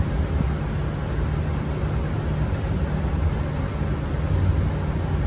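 Steady low mechanical hum with a rumble underneath, constant throughout.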